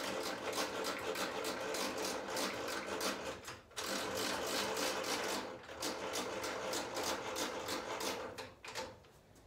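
A power driver runs in three long stretches with a rapid, even rattle, working on the two bolts that hold a bench vise to the workbench. It stops near the end.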